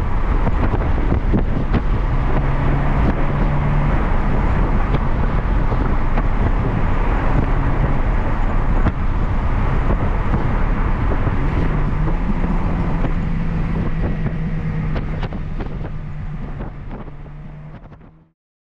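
Engine-swapped Rover Metro running on its Lotus Elise Rover K-series engine, heard from inside the cabin under road and wind noise. The engine note holds steady, drops away for a while and lifts again about twelve seconds in, then the whole sound fades out near the end.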